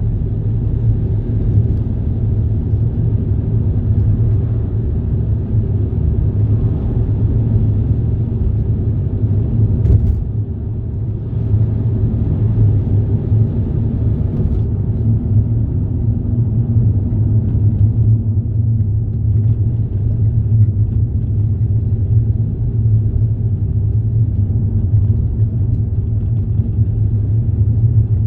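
Steady low rumble of a moving road vehicle, with a short click and a slight dip in level about ten seconds in.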